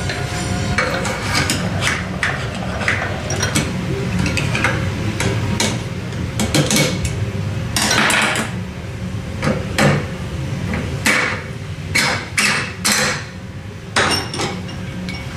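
Irregular metallic knocks and clinks of the steel parts of an RB pulling tool being handled, fitted and tapped at a bench vise. A steady low shop hum runs underneath.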